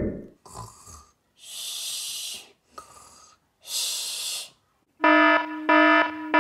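Slow sleep breathing, two airy breaths in and out, then an electronic alarm beeping loudly in short, evenly spaced beeps, a wake-up alarm.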